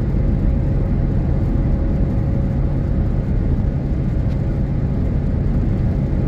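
Car driving at highway speed, heard from inside the cabin: a steady low rumble of tyres on asphalt and engine noise.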